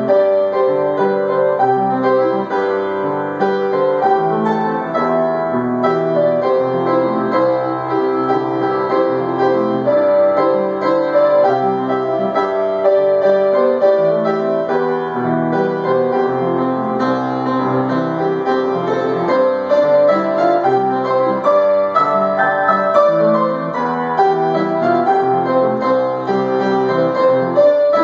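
Solo piano improvisation: a steady, unbroken stream of overlapping notes, mostly in the middle register.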